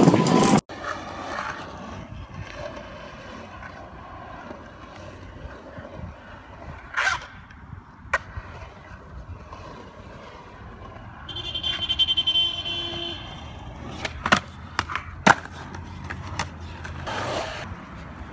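After a short burst of music that cuts off, skateboard wheels rolling over concrete, with several sharp clacks from the board and a brief high whine about twelve seconds in.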